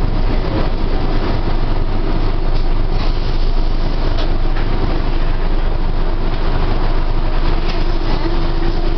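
Bus cabin noise while riding: a steady rumble of engine and road, heard from inside the passenger compartment, with a faint steady tone coming in near the end.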